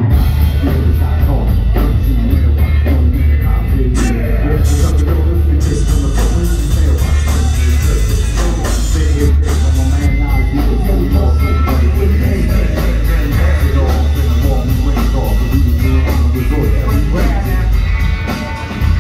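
Live rock band playing loud through a PA: pulsing bass and kick drum under electric guitar and keyboards, with a fast, steady hi-hat. The band drops back briefly near the end.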